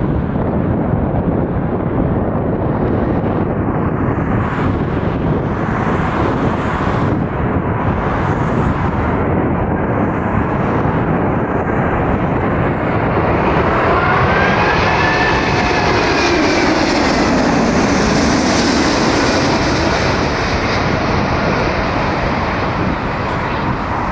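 Airbus A380 jet airliner on final approach, its four jet engines giving a steady roar. The roar swells a little past the middle as the engine whine glides down in pitch while the jet passes.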